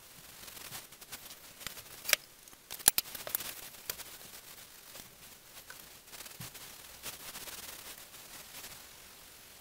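Hand rubbing and scrubbing on a cast iron lathe bed during cleaning, with a cluster of sharp clicks and taps about two to three seconds in.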